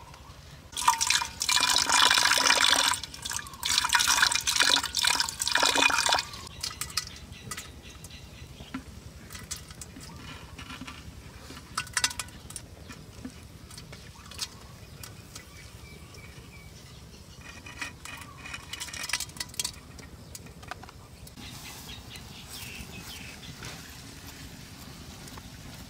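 Water poured into a clay pot in several loud gushes over the first five seconds or so, with a ringing tone from the pot as it fills. After that come quieter scattered splashes and drips as wasp larvae are tipped in from a bowl.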